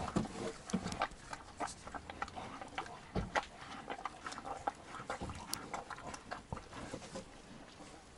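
A young bull calf slurping and lapping a liquid mash of milk, water and crushed grain, in many short irregular sucks and licks.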